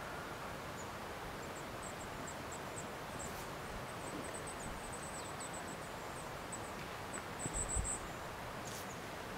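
Forest ambience: a steady hiss with runs of faint, very high-pitched chirps, densest and loudest near the end, where a few soft low thumps also come.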